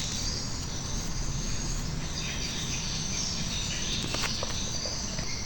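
Steady background noise with a faint, continuous high-pitched tone running through it.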